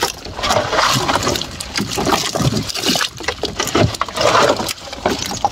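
Irregular sloshing and splashing of water in shallow swamp water and mud.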